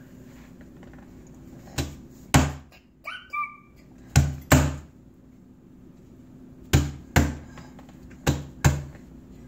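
A toddler's open hand slapping a wooden tabletop: eight dull slaps in four pairs, the two in each pair about half a second apart.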